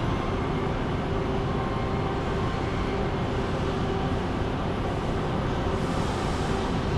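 Steady mechanical rumble with a faint, even hum running through it.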